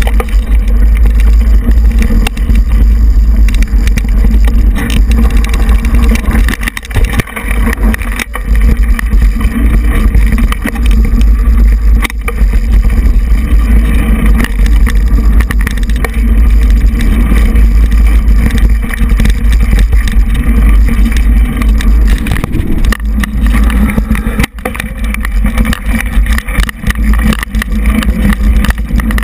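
Mountain bike riding a dirt singletrack, heard through a handlebar-mounted GoPro: loud low wind buffeting and rumble on the microphone, with frequent knocks and rattles as the bike goes over bumps.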